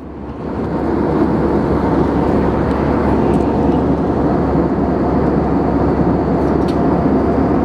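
Steady rushing cabin noise of an Airbus A319 airliner in flight, airflow and engines heard from a window seat, fading up over the first second and then holding level.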